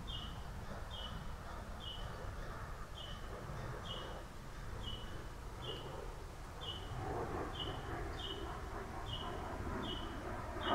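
A bird repeats a short, high chirp at an even pace, about three every two seconds, each note dipping slightly in pitch. Beneath it is a low, steady outdoor rumble that grows a little louder in the second half.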